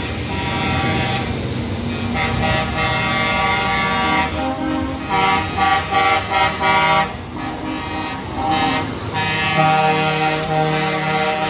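Semi-trailer transporter trucks rolling slowly past with their diesel engines running. Their horns toot in several short blasts around the middle, and a longer held horn sounds near the end.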